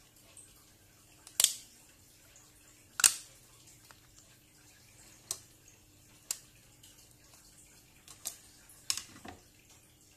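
Sharp plastic clicks and snaps, about seven over ten seconds with the two loudest in the first few seconds, from the snap-fit clips of a Samsung Galaxy A8 (2018) housing and the plastic opening pick and pry tool as the phone is pried apart.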